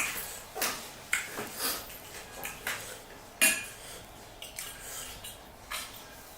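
A person eating pani puri close to the microphone: a string of short crunches, clicks and clinks, with the loudest about three and a half seconds in.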